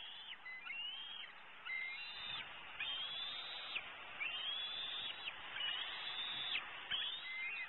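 Bald eagle calling from the nest: a string of high squealing calls, about one a second, each holding its pitch briefly and then dropping off at the end.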